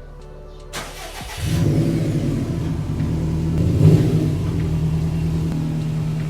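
Subaru STI's flat-four engine cranking and catching about a second in, then idling steadily, with a brief rise near the middle.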